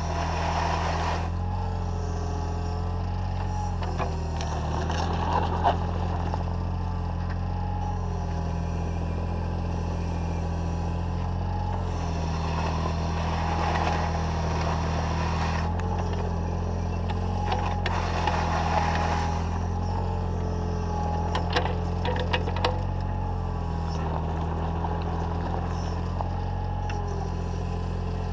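Takeuchi TB014 mini digger running steadily, its hydraulics whining up and down in pitch as the arm and bucket are worked. The bucket scrapes over gravel and mud in several spells, with a few sharp clunks.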